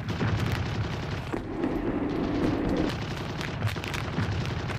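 Battle sound effects: a continuous rumble of explosions and shellfire, with many sharp gunshots scattered through it, which cuts off abruptly at the end.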